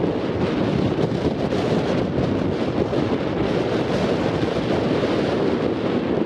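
Wind blowing across the camera microphone: a steady, loud noise with no breaks.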